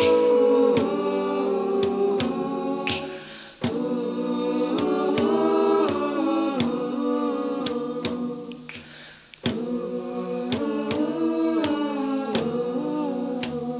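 Background music: an a cappella vocal group singing in harmony over a steady clicking beat, with short breaks between phrases.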